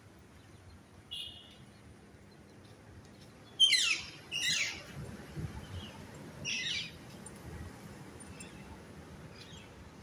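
Parakeet screeching: three loud, harsh, falling calls about a second apart starting some three and a half seconds in, the first the loudest, after a short fainter call about a second in.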